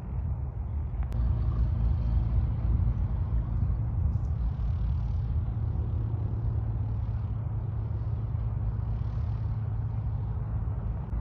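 Steady low rumble of a light propeller aircraft's piston engine running, with wind buffeting the microphone in gusts.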